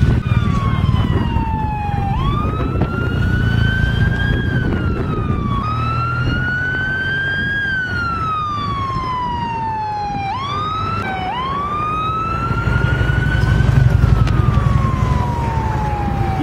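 Escort vehicle's siren wailing, slowly rising and falling in sweeps a few seconds long, with a quick short yelp about ten seconds in, over the rumble of road traffic.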